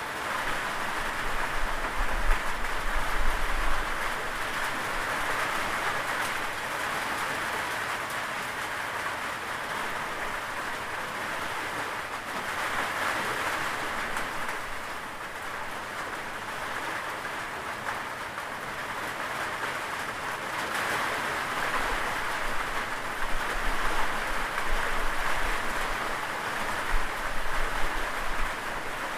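Steady rain falling, a dense even hiss of drops. A low rumble runs underneath briefly a couple of seconds in and again for several seconds near the end.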